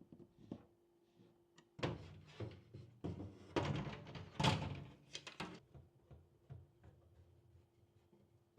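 Computer parts being handled and fitted during a PC build: about four seconds of knocks, clacks and scraping, loudest past the middle, with a faint steady hum underneath.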